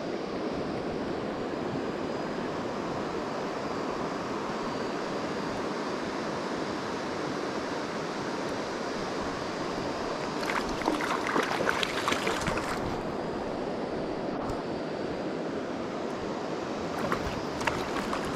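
Steady rush of river current running high after rain. About ten seconds in, a couple of seconds of quick clicking from a spinning reel being cranked, and near the end splashing from a hooked rainbow trout at the surface.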